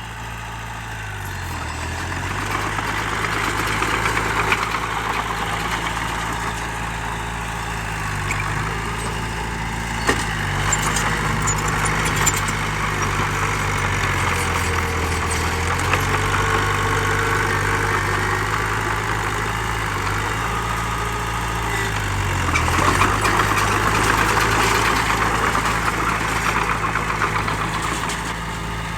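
Diesel engine of a heavy earthmoving machine running steadily, its pitch dipping and picking back up several times as the load changes.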